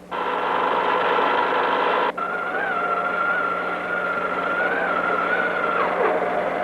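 Machine tools running in a workshop, heard on an old film soundtrack: a noisy mechanical din, then from about two seconds in a steady high whine that wavers slightly and slides down near the end.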